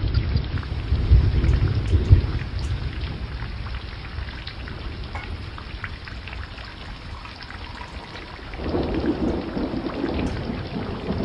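Thunderstorm: steady rain with a low rumble of thunder over the first two seconds or so. The rain grows louder in the last few seconds.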